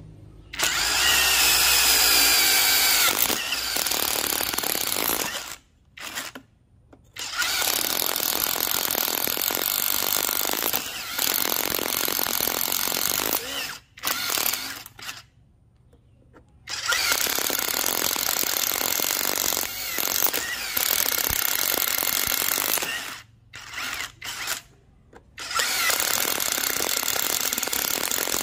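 Hukan 150 Nm brushless cordless impact driver drilling into a hollow clay brick, running under load in several long runs of five to seven seconds with short pauses between, and a few short bursts shortly before the last run.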